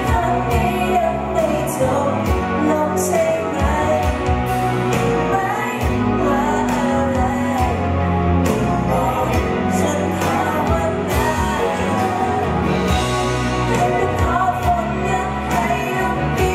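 A live pop band: a man singing a Thai pop ballad into a microphone over electric guitar and bass, with a steady beat.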